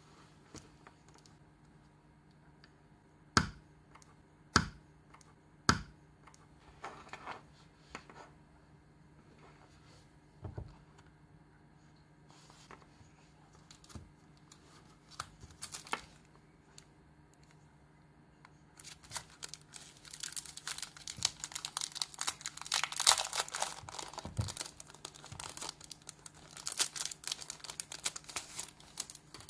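Three sharp clicks a few seconds apart as the mini binder's rings are snapped, then, from about two-thirds of the way through, loud, continuous crinkling of a clear plastic wrapper being handled and opened on a pack of loose-leaf refills.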